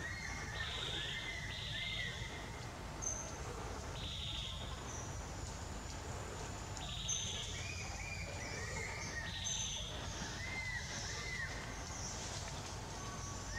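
Outdoor forest ambience: repeated short, high chirping animal calls every second or two, some rising and falling in pitch, over a low steady rumble.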